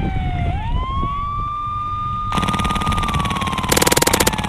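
A wailing siren sweeping slowly down in pitch, then rising quickly back up and falling again. About halfway in a loud, fast rattle starts, growing densest and loudest near the end.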